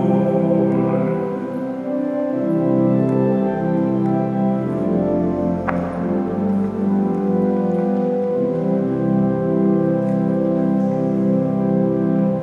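Church organ playing slow, held chords that shift every second or so.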